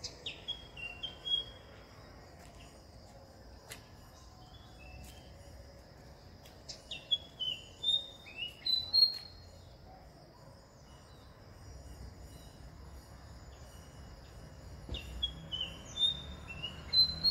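Fantail flycatcher singing: three phrases of clear whistled notes, each a short run that sweeps down and then steps upward, about seven seconds apart. A faint steady high-pitched tone runs behind them.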